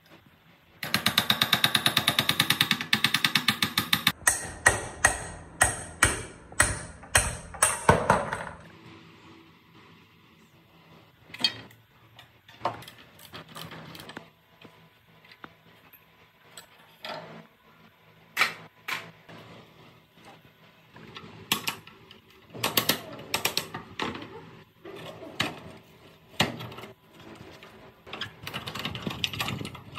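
Hammering on the steel parts of an old cut-off saw: a fast run of taps for about three seconds, then about eight heavier single blows, roughly two a second. Scattered clinks and knocks of metal parts follow, and metal scraping near the end.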